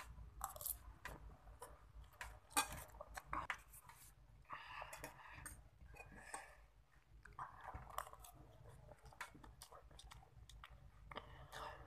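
Close-up chewing of spicy instant noodles and rice, with the light clicks of a spoon against the plate.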